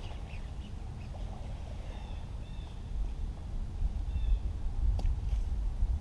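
Low, uneven rumbling on the action camera's microphone, growing stronger about halfway, with a few short, high chirps from a bird and one sharp click near the end.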